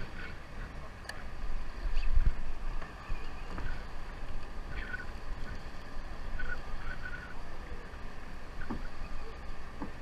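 Wind rumbling on the microphone aboard a boat at sea, with a stronger gust about two seconds in.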